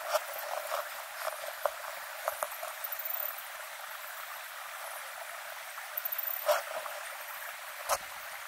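Shallow trout stream running with a steady rushing hiss, with a few soft clicks and rustles close by.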